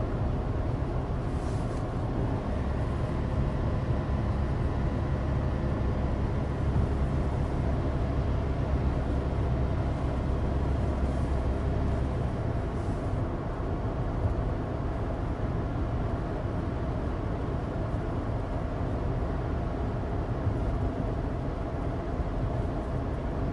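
Inside the cabin of a Suzuki Alto Turbo RS under way: its small turbocharged three-cylinder engine drones steadily over tyre and road noise. The low hum is heavier for the first half, then eases.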